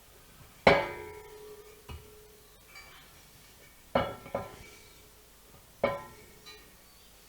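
Metal clinking and ringing as an aluminium plate is fitted onto a titanium anodizing rack: four sharp strikes, each ringing briefly, the first the loudest, with a few lighter taps between.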